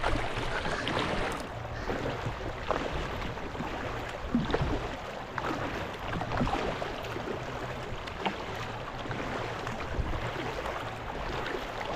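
Paddling a Tucktec folding kayak: water splashing and trickling as the paddle blades dip, with scattered light knocks.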